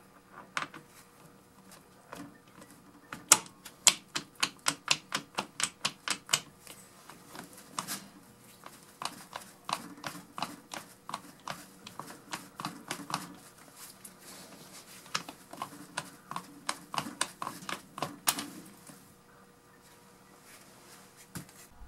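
Metal clicking and clacking of an impact socket being worked on and off the DeWalt DCF899 impact wrench's pin detent anvil by hand. It comes in runs of quick clicks, about four or five a second, with short pauses between.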